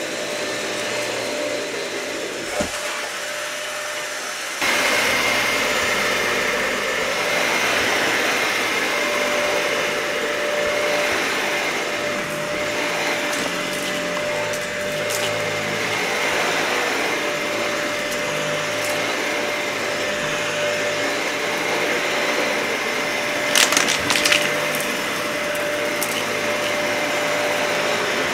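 Dyson vacuum cleaner running steadily over a matted carpet, with a constant whine. About four and a half seconds in it gets suddenly louder and a higher whine comes in. Near the end there is a short burst of crackling clicks.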